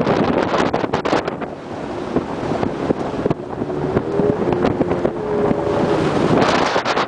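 Wind buffeting the microphone on a moving boat, with the rush of the boat through the water. A few faint steady tones come in about halfway through.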